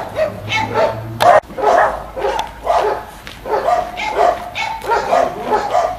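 A dog barking over and over, in short barks a few tenths of a second apart, with a brief break about a second and a half in.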